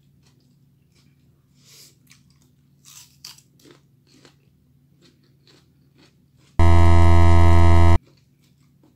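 Soft crunching and chewing of raw bell pepper. About six and a half seconds in, a loud, low buzzing tone cuts in abruptly, holds steady for about a second and a half, and cuts off just as abruptly.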